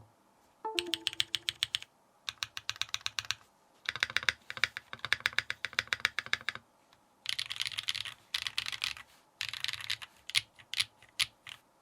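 Typing on an Adélie 40% gasket-mounted keyboard with a brass plate and tape mod: clean, clacky keystrokes in fast runs of about one to three seconds separated by short pauses, with shorter, sparser runs near the end.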